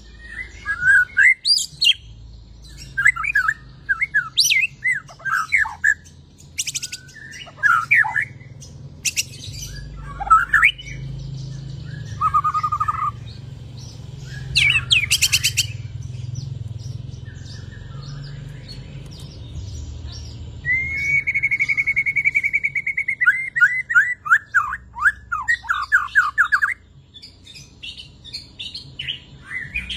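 White-rumped shama in full song after its moult, pouring out a varied string of loud whistles, sweeping notes and quick trills. A long run of rapid, rattling notes comes about two-thirds of the way through. A faint steady low hum lies underneath.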